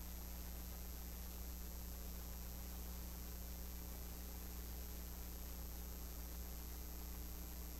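Steady low electrical hum under an even hiss: background noise of the sound system or recording feed, with no other sound standing out.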